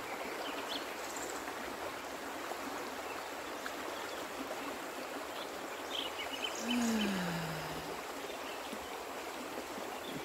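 Steady rush of stream water flowing around a bather. About seven seconds in, a single hummed note slides downward for about a second.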